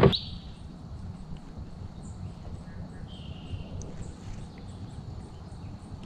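Quiet outdoor ambience by the water: a steady faint high-pitched tone and a short bird call about three seconds in, over a low rumble. A single knock comes at the very start.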